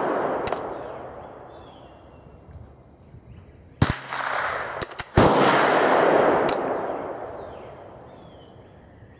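Two .22 LR rifle shots, a sharp crack about four seconds in and another about a second and a half later. Each is followed by a long fading echo.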